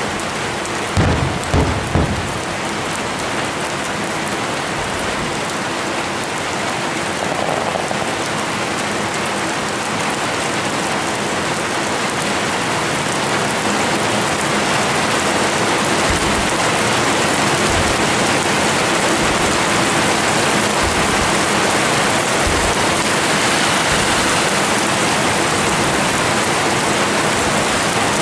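Fireworks display: a few booms in the first two seconds, then a dense, continuous rain-like crackling hiss that slowly grows louder, with scattered low thuds.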